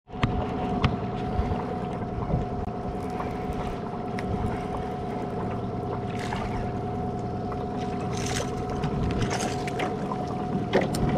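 A small fishing boat's motor running steadily, a constant hum in two tones, with a few short hisses.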